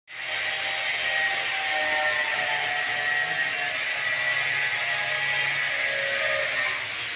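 Handheld angle grinder grinding metal clamped in a vise, its disc throwing sparks: a loud, steady high-pitched whine over a harsh grinding noise.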